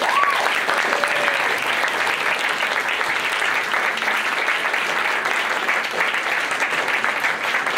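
A small seated audience applauding steadily, clapping that starts all at once and holds at an even level.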